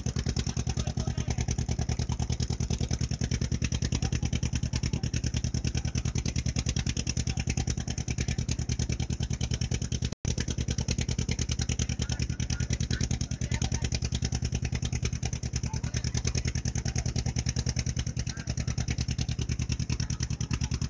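Motor boat's engine running steadily under way, a rapid, even thudding.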